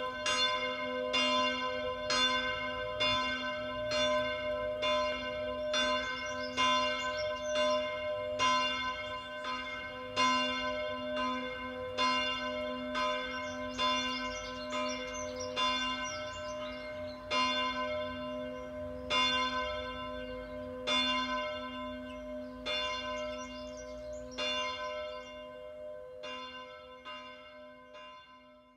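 Church bell ringing, struck about once a second, fading out over the last few seconds.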